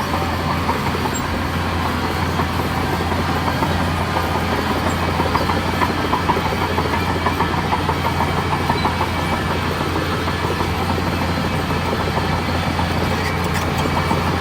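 Crawler bulldozer's diesel engine running steadily, with the fast, continuous clank and rattle of its steel tracks as it works.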